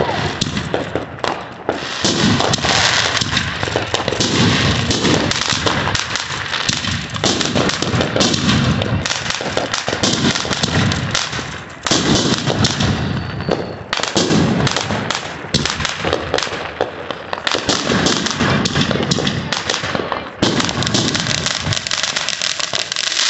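Consumer fireworks going off in a rapid, continuous string: aerial shots popping and bursting overhead over the hiss and crackle of a ground fountain, with brief lulls about halfway and near the end.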